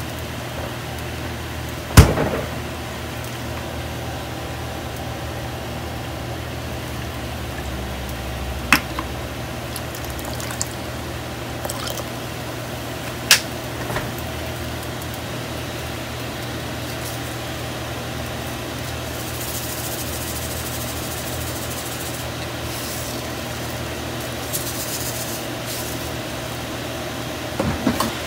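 Water boiling and bubbling in a saucepan on an induction hob, over a steady low hum. A sharp clank about two seconds in is the loudest sound, with a couple of fainter clicks later.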